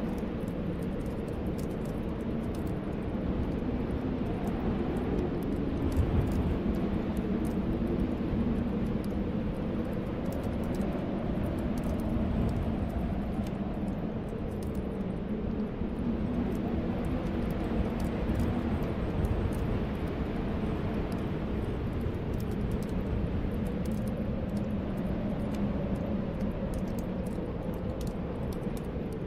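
Snowstorm wind blowing steadily with a low, slowly swelling howl, over the light crackle of a wood fire in a fireplace.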